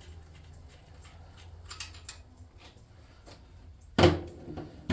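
Light clicks and handling of metal hand tools, then one sharp, loud knock about four seconds in, as a tool is set down hard.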